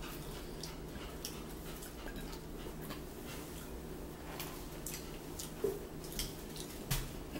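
A chihuahua whimpering faintly now and then, with scattered small clicks from eating at the table, over a steady low hum.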